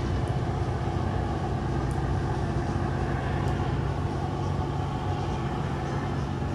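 Steady low mechanical hum of a docked cruise ship's machinery, holding a few fixed low tones without change.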